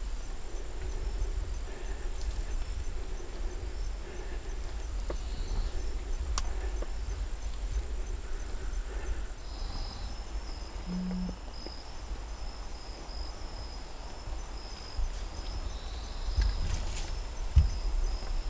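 Insects trilling steadily in the woods, with a second high, pulsing trill joining about halfway through. A low rumble runs underneath, and there are a few faint clicks.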